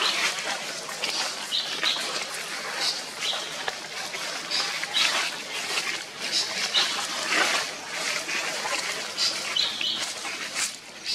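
Baby long-tailed macaque giving short, high-pitched cries over and over, about one every second, with some rustling in dry leaves.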